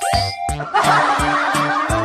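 Upbeat background music with a steady beat, with quick pitch-sliding sound effects at the start; under a second in, a burst of laughter joins over the music.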